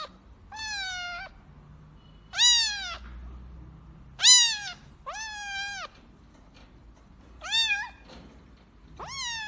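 A domestic cat meowing repeatedly: about six separate meows, each up to about a second long.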